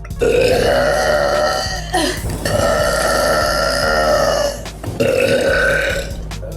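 A girl burping: three long, drawn-out burps, the first two about two seconds each and the last shorter.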